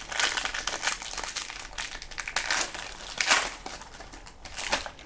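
Foil wrapper of a baseball card pack being torn open and crinkled by hand: a run of irregular crackling rustles, with two sharper crinkles about three and a half and nearly five seconds in.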